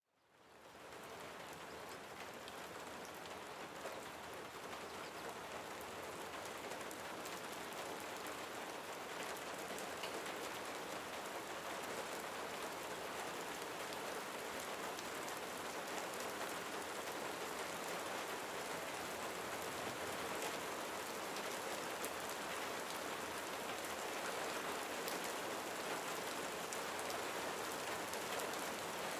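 Steady rain falling on a surface, an even hiss with scattered individual drop ticks, fading in over the first second and swelling slightly louder as it goes on.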